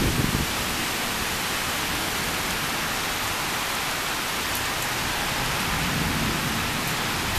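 Heavy thunderstorm rain pouring steadily, an even hiss, with a short low rumble right at the start.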